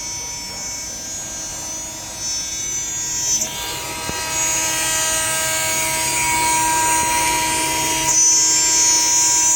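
CNC router spindle running and cutting, a steady high-pitched whine with rougher cutting noise that grows louder about a third of the way in and again near the end.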